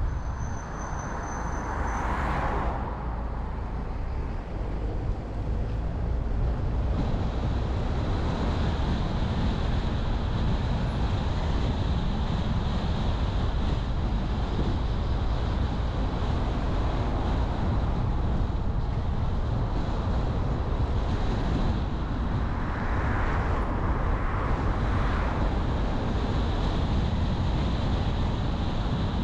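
Steady road noise of a car driving: a continuous low rumble of engine and tyres on the road, with brief swells that sound like passing traffic near the start and again about two-thirds of the way through.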